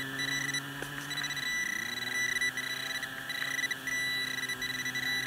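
Metal detector signalling a target: a high steady beep that breaks off and resumes several times, over a lower hum that dips in pitch about a second and a half in.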